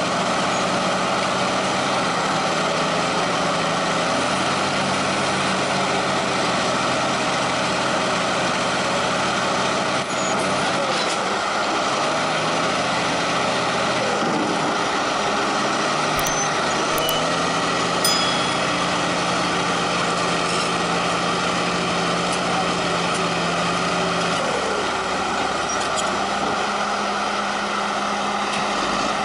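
Big diesel engines of bulldozers running hard under load, a steady heavy drone whose pitch shifts up and down several times as the throttle changes.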